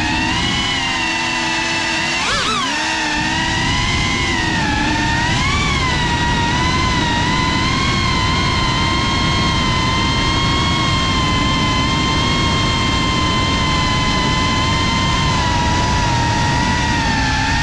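FPV drone's brushless motors and propellers whining steadily. The pitch rises briefly twice with throttle blips in the first six seconds, then holds level. It is heard close up from the GoPro carried on the drone.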